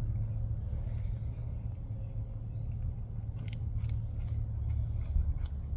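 Cottontail rabbit crunching a carrot: several crisp bites in the second half, over a steady low rumble.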